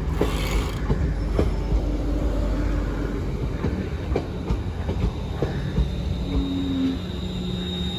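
Class 350 Desiro electric multiple unit moving along the platform close by: a steady low rumble of wheels and bogies, with scattered clicks of the wheels over the rail and a faint steady whine.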